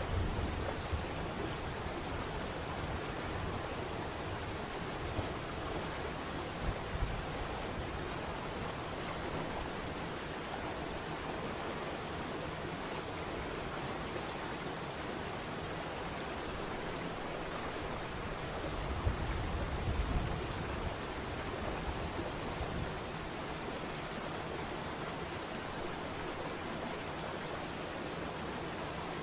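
Waterfall: steady rushing water, with a low rumble swelling briefly about two thirds of the way through.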